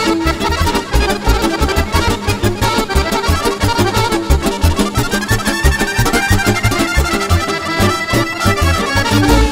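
Live folk band playing, led by accordion and violin with an electric keyboard, over a steady beat of bass and drums.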